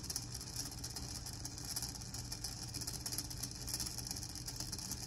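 VEX IQ smart motor driving a train of plastic compound gears, a steady low hum with a fine, even rattle of plastic gear teeth meshing and rubbing.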